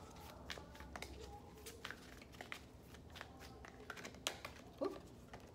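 Tarot cards being shuffled by hand: faint, irregular light clicks and rustles of the deck.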